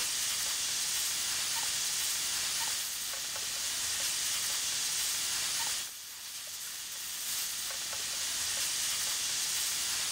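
Hot nitrogen gas hissing steadily from a nitrogen plastic welder's nozzle as it heats a crack in a polyethylene tank for welding. The hiss dips briefly about six seconds in, then picks up again.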